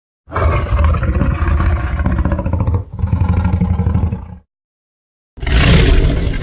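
Tyrannosaurus rex roar sound effect: a long, rough, low roar in two parts, broken briefly about three seconds in. After about a second of silence, another loud effect with a harsher, brighter start begins near the end.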